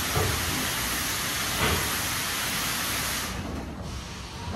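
Water spray in an automatic car wash hissing steadily, with two dull thumps, then cutting off about three seconds in, leaving a lower rumble.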